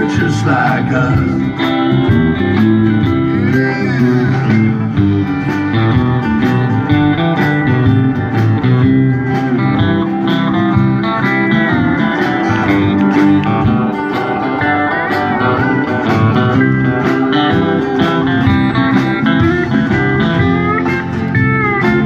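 Live country band playing an instrumental passage: a pedal steel guitar's sliding notes over banjo, electric and acoustic guitars and drums.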